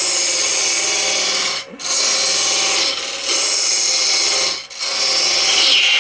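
Woodturning lathe with a tool scraping a spinning blank of banksia pod cast in resin. It runs in long continuous passes that break off briefly twice.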